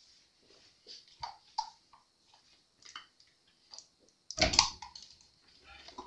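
Small scattered clicks and rustles of hands handling a paper towel and objects on a wooden workbench, with a louder knock and rustle about four seconds in.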